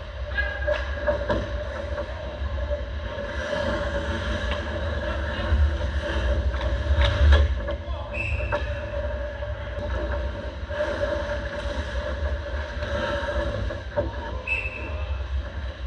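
Ice hockey play: skates scraping on the ice, with a few sharp clacks of sticks and puck, the loudest about seven seconds in, over a steady low rumble and hum.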